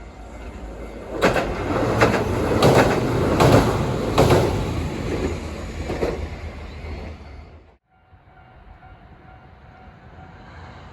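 A train passing close by, its wheels clacking over rail joints in a regular series of knocks. The sound stops abruptly at a cut about eight seconds in and gives way to a quieter steady background.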